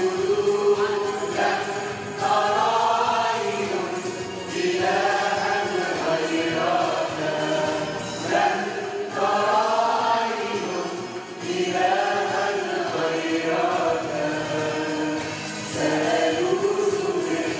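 A group of voices singing an Arabic Christian hymn together in sustained phrases.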